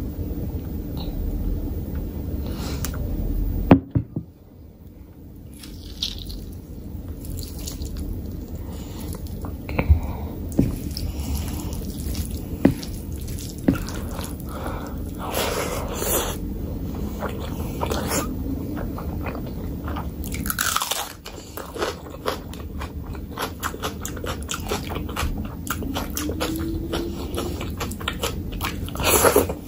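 Close-miked eating of mutton curry with rice: chewing, biting and wet mouth sounds, with the squish of fingers mixing rice and gravy on the plate. A few sharper clicks stand out.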